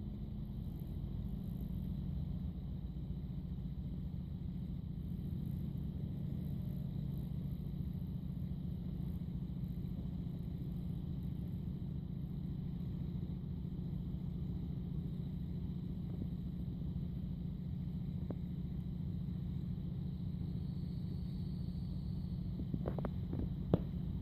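A steady low mechanical hum with a faint high whine above it, and a few sharp clicks near the end.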